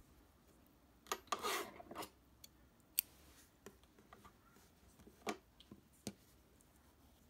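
Faint handling sounds of crochet work: a brief rustle a little over a second in, then a few light clicks and taps as the metal crochet hook and the yarn motif are handled and set down on a tabletop.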